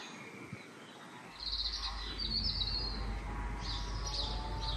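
Small birds chirping in several quick runs of high chirps. A steady low rumble comes in a little over a second in.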